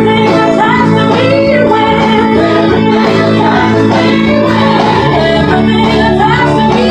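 Worship music: sustained electronic organ chords with voices singing over them, in a large hall.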